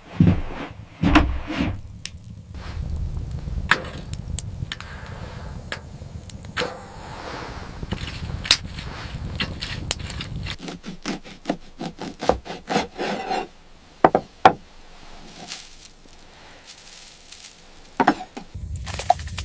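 Irregular knocks, taps and rubbing, like wood being handled, over a low rumble that drops out about ten seconds in and returns near the end.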